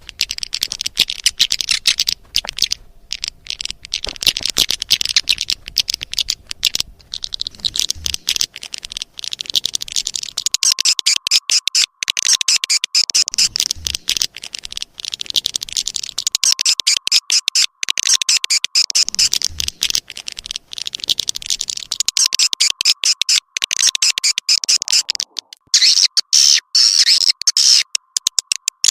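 Swiftlet lure recording: dense, rapid twittering and clicking swiftlet chirps, rising and falling in waves. From about a third of the way in, a faint steady tone runs underneath. The recording is made to be played from a swiftlet house to call the birds in.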